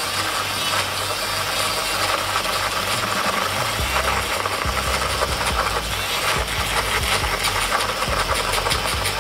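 Small battery-powered handheld milk frother running steadily, its spinning wire-coil whisk whipping egg whites into foam in a bowl.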